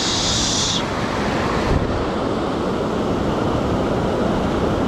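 Mountain stream rushing steadily over rocks and a small cascade close by. A brighter, higher hiss rides on it for about the first second.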